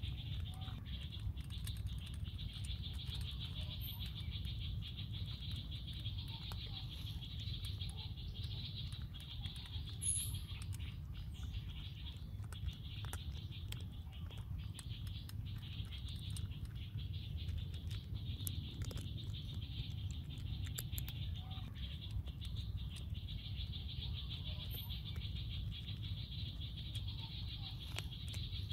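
Outdoor forest ambience: a steady high-pitched insect drone over a low rumble, with scattered small clicks and rustles.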